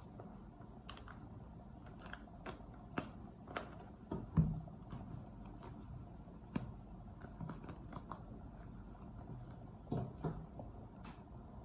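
Rubber bands being stretched and wrapped around bunched fabric: scattered small snaps and clicks, with one louder knock about four seconds in.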